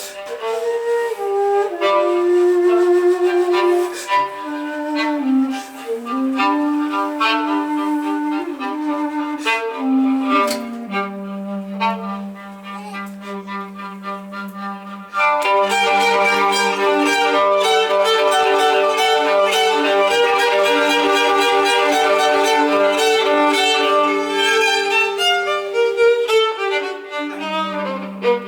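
Live instrumental music led by a violin playing a melody of held and sliding notes. About halfway through, a fuller, busier accompaniment with quick repeated strokes comes in under it.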